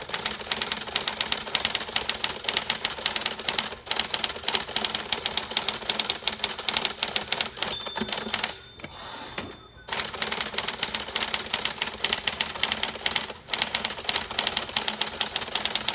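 1959 Smith Corona Electra 12 electric typewriter typing rapidly, its type bars striking the platen in a quick stream of clacks over the steady hum of its motor. The typing stops briefly about 4 seconds in, pauses for over a second around the middle, and stops briefly again near the end.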